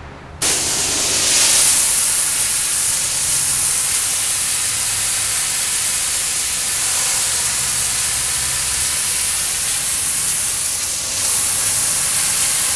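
Hot-water pressure washer (steam cleaner) spraying 260-degree water onto brick to strip graffiti paint: a loud, steady hiss that starts abruptly about half a second in and dips briefly near the end.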